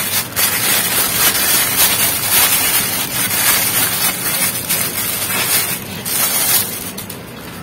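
Clear plastic bag crinkling and rustling in the hands as it is worked off a metal phone stand, going quieter near the end.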